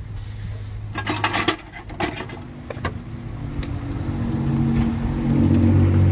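A motor vehicle engine running, growing louder from about halfway through, with a few sharp clattering knocks about a second in.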